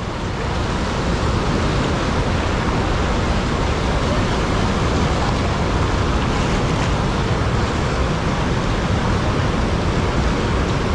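Fast-flowing muddy floodwater rushing and churning, a steady loud noise with no breaks.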